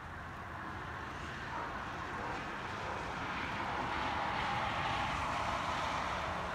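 A vehicle passing: a steady rushing noise that builds over about three seconds and then holds.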